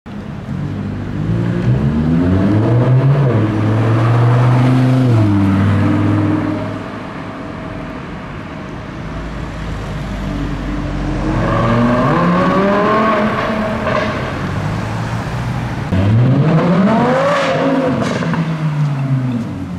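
Audi R8 V10 Spyder's naturally aspirated V10 accelerating hard three times, the engine note climbing steeply through the revs in each pull. The last pull starts suddenly near the end.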